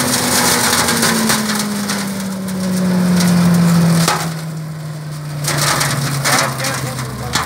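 Tractor-mounted flail mower shredding vine prunings and leaves, with dense crackling and snapping of chopped wood over the steady hum of the tractor and rotor. The hum slowly drops in pitch over the first few seconds, then holds steady.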